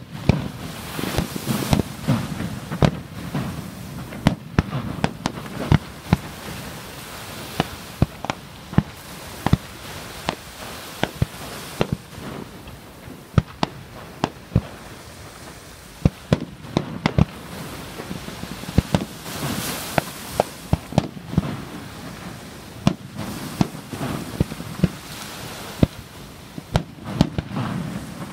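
Aerial fireworks shells bursting in a continuous, irregular string of sharp bangs, at times several a second, with rumbling and crackling between them.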